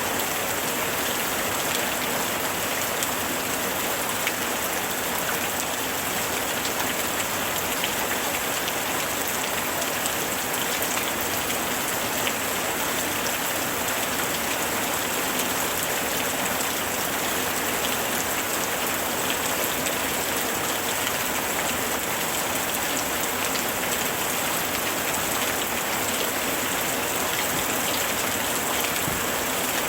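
Steady summer rain falling and pattering on surfaces, a dense even hiss full of fine drop ticks.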